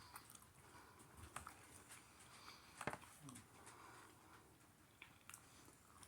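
Near silence with faint eating sounds: quiet mouth noises and small clicks, with one sharper click about three seconds in.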